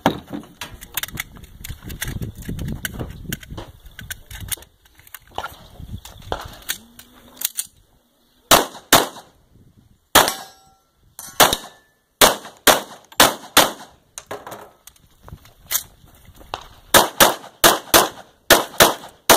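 Semi-automatic pistol fired in quick pairs and short strings, more than a dozen sharp cracks starting about eight seconds in. Before the shooting there are knocks and rustling of movement.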